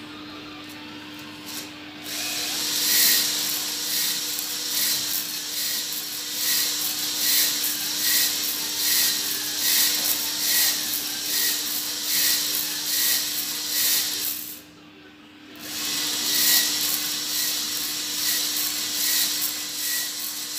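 Cordless drill spinning a rotary brush inside a cylinder bore of a cast-iron Jaguar XK engine block, scouring off surface rust. It starts about two seconds in with a regular scraping pulse of roughly two a second as the brush is worked in the bore, and stops for about a second near three-quarters of the way through before running on.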